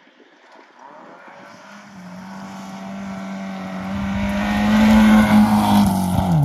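A Volvo sedan rally car on a gravel stage, its engine held at high revs and growing steadily louder as it approaches, with gravel and dust noise around it. Near the end the engine note drops sharply in pitch as the car passes close by.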